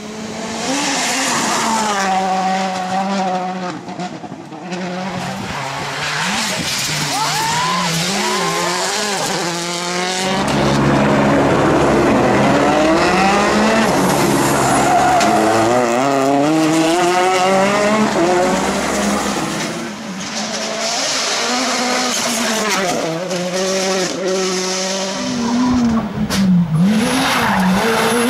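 Rally cars driven flat out past the roadside, their engines revving up and dropping back over and over through gear changes, with some tyre noise. Several separate passes follow one another, the loudest and deepest about ten to twenty seconds in.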